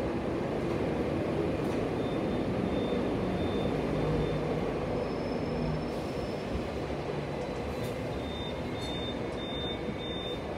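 Steady low rumble of street traffic and idling buses, heard from inside a stopped Hong Kong double-decker tram.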